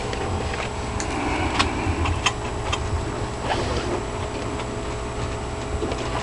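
Light clicks and taps of eggs being handled and turned by hand inside a converted-refrigerator incubator, over a steady low hum.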